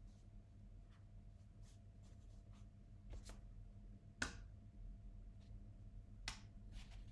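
Near silence over a low steady hum, broken by about four light clicks and taps from a paintbrush and painting tools being handled, the loudest about four seconds in.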